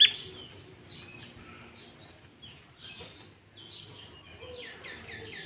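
Sooty-headed bulbul (kutilang) singing a lively string of chirps and whistles. It opens with one loud, sharp note, and near the end comes a quick run of about six falling notes.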